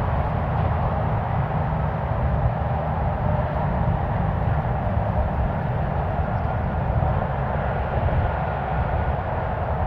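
Steady rumble of distant highway traffic and construction machinery at a freeway interchange building site.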